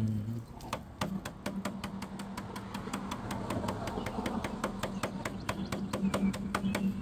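Gloved hand patting rapidly on the steel shell of an electric water heater tank, about six pats a second, over a low steady hum. The tapping is done to judge by ear how high the mineral sediment sits inside the tank.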